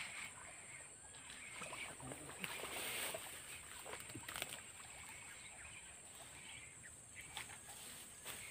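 Steady high-pitched insect chirring, with faint clicks and rustles as a fishing rod and reel are handled and cast; a slightly louder rustle about three seconds in.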